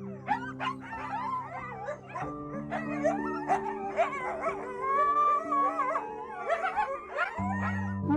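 Many overlapping short animal cries, gliding up and down in pitch, over background music with held chords.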